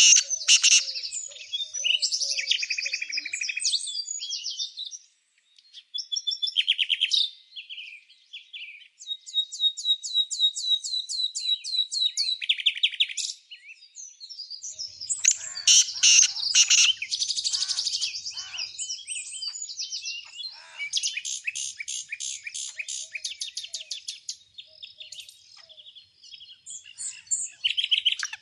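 Several small songbirds chirping and singing over one another, with fast rattling trills of rapidly repeated notes; the song briefly drops out about five and eight seconds in.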